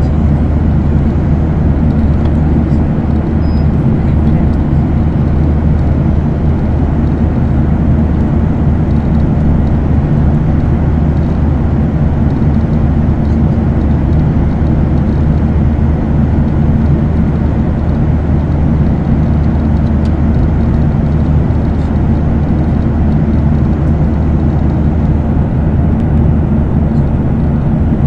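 Steady engine and airflow noise of a jet airliner in cruise, heard inside the passenger cabin: an even noise with a low, unchanging hum underneath.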